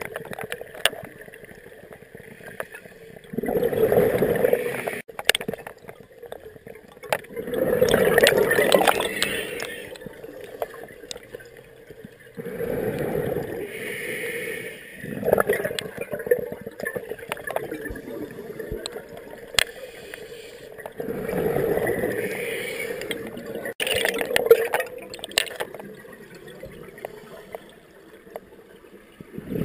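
Scuba diver breathing through a regulator underwater: a gurgling rush of exhaled bubbles every few seconds, with quieter stretches between breaths.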